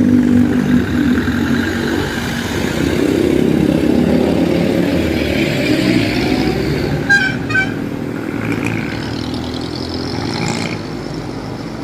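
Highway road traffic: cars and motorcycles running and passing, with engine sound rising and falling. About seven seconds in come two short high-pitched beeps.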